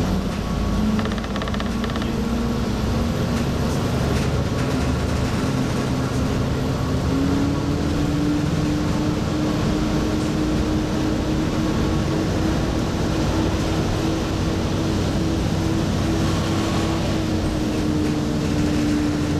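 Diesel railcar under way, heard from inside the KiHa 28 passenger cabin: a steady engine drone over the rumble of the wheels on the rails. The engine's note steps up in pitch about seven seconds in and then holds.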